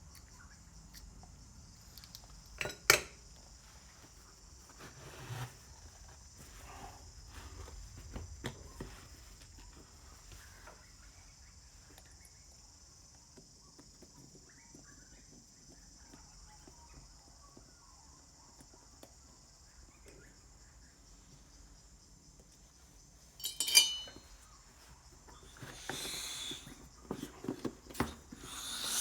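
Steady high chirring of crickets in the background, with scattered clicks and clinks of small metal wheel parts being handled on a bench: a sharp click about three seconds in, a loud rattling clatter near the end, then a few more knocks.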